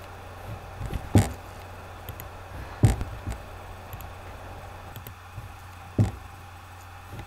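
Three sharp clicks or taps, a little over a second in, near three seconds and at six seconds, with a few fainter ticks between them, over a steady low electrical hum.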